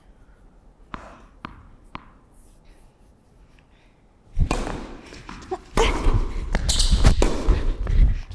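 A tennis ball bounced three times on the hard court, about half a second apart, as the server readies to serve. The serve is struck about four seconds in, followed by loud racket strikes and thuds as the point is played.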